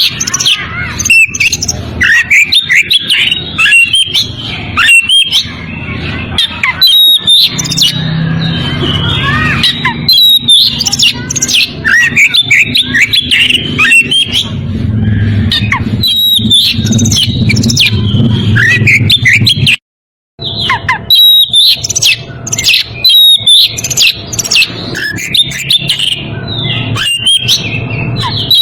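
Oriental magpie-robin (kacer) singing a dense, rapid run of whistles and harsh chirps: the song of a male in breeding condition challenging a rival. The song cuts out for a moment about two-thirds of the way through.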